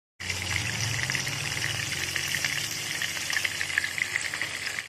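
Marinated rohu fish steaks frying in hot oil in a pan: a steady, dense crackling sizzle, the fish-frying stage of making macher jhol. It starts abruptly just after the beginning and cuts off sharply at the end.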